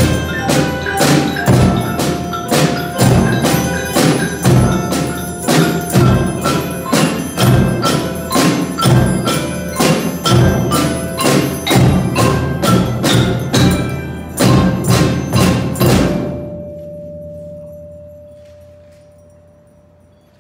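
Children's percussion band playing bass drum, snare drum, tambourines, glockenspiels, melodicas and xylophone, with a steady beat of about two strokes a second. The piece ends about 16 seconds in, and its last note fades slowly away.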